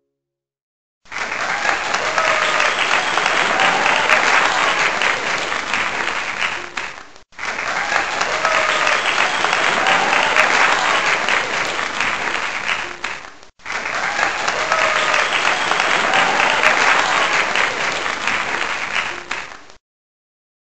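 Crowd applause, dense clapping with faint cheering voices in it. It plays as three back-to-back stretches of about six seconds each, and each one cuts off abruptly.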